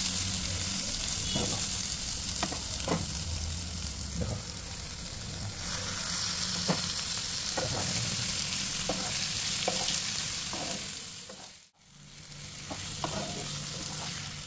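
Curry masala sizzling in a frying pan as a wooden spatula stirs and scrapes through it, with scattered light knocks of the spatula against the pan. The sizzle cuts out abruptly about three-quarters of the way through, then comes back.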